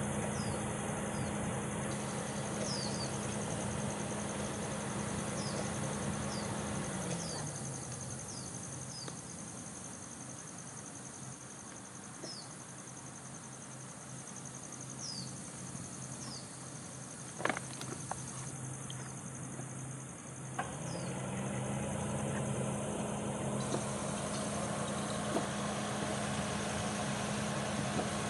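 Outdoor ambience: a steady high insect drone with scattered short, falling bird chirps. Beneath it is a low engine-like hum that holds at a higher pitch through the first seven seconds, drops back, and rises again about two-thirds of the way through. There is a single sharp click about halfway.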